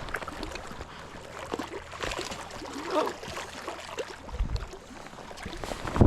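Water splashing and sloshing at the rocky shore as a hooked tiger trout is brought in and landed, with a few dull knocks; the loudest comes near the end.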